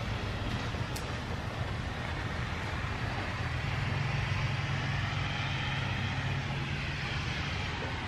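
A car being driven, a steady engine and road hum heard from inside the cabin, getting a little louder about halfway through.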